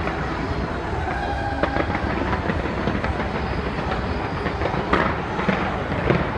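Fireworks going off in rapid succession, a dense steady rumble and crackle, with a few sharper bangs standing out, one about a second and a half in and two more near the end.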